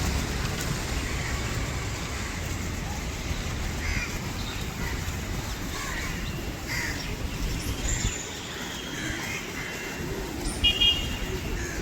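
A flock of birds calling, many short calls overlapping, over a low rumble of wind on the microphone that drops away about two-thirds of the way through. Near the end one loud call comes twice in quick succession.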